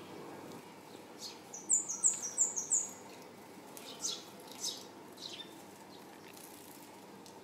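Eurasian tree sparrows chirping: a quick run of about five high chirps a couple of seconds in, then three single chirps about half a second apart.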